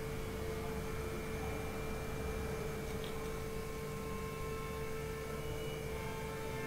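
Steady background hum holding one constant mid-pitched tone over low rumbling room noise. Fainter higher tones join it from about three seconds in.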